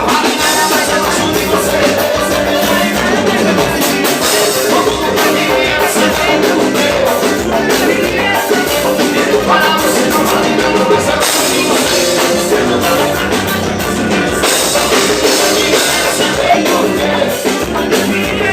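Live band music played loud and without a break, with drums and pitched instruments, and perhaps a voice, in the mix.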